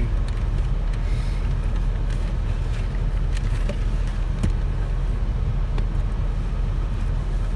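Truck engine idling, a steady low rumble heard inside the cab, with a few faint clicks and knocks as things are moved about.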